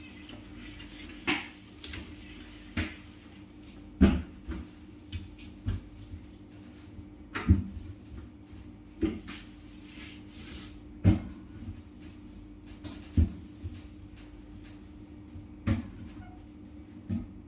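Irregular knocks and clunks of kitchen things being handled and set down at a sink and counter during cleaning, about a dozen, one every second or two, over a steady low hum.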